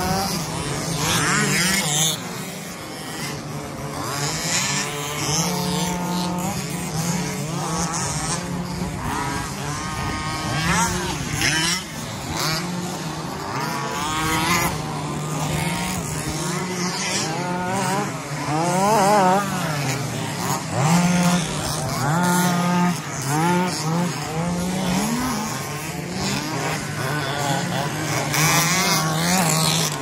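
Several remote-control 2WD buggies racing on a dirt track, their motors whining in overlapping pitches that rise and fall as the cars accelerate and brake. A steady low hum runs underneath.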